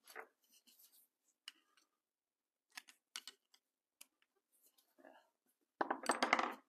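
A screwdriver and small metal parts clicking and scraping against a Suzuki TS185's aluminium crankcase during a teardown. There are a few scattered clicks, then a denser burst of clicking and scraping near the end, which is the loudest part.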